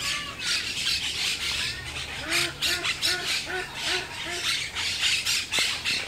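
A flock of parakeets calling, with many rapid overlapping squawks. About two seconds in, another bird gives a run of six lower, evenly spaced calls.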